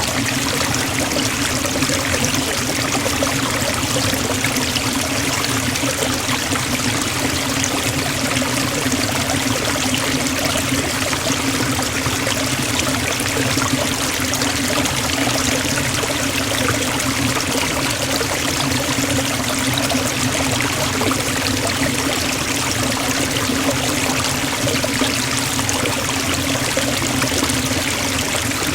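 Forest waterfall rushing steadily, an even wash of falling and splashing water without breaks.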